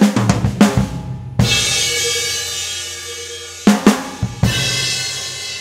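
Drum kit: a quick fill on the drums ends in a crash on a 20-inch cymbal that rings for about two seconds. A second short fill follows, then another crash that is still ringing at the end.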